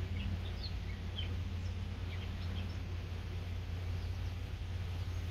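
Faint, scattered bird chirps, mostly in the first half, over a steady low rumble.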